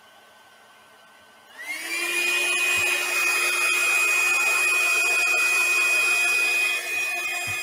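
A handheld electric blower switches on about a second and a half in, its motor whine rising quickly to a steady high pitch over a rush of air, and runs steadily; it dips slightly near the end.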